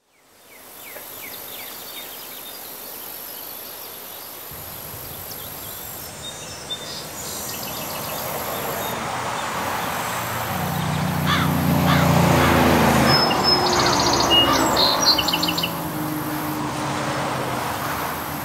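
Outdoor ambience: a vehicle's low rumble comes in about four seconds in, swells to its loudest past the middle and eases off, over a steady noise bed with birds chirping.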